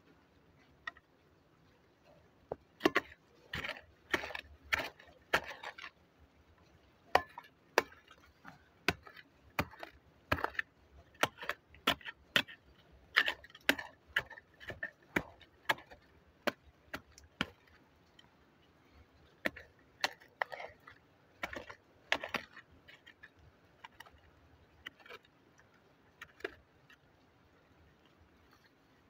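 Digging in hard soil: an irregular run of sharp knocks and scrapes, at times several a second, with short bursts of scraping between them.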